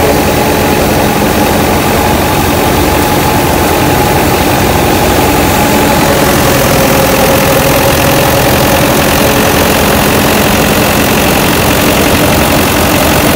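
New Holland 640 tractor's diesel engine running steadily under load, driving a grain thresher through its PTO shaft, with the thresher's machinery running along with it.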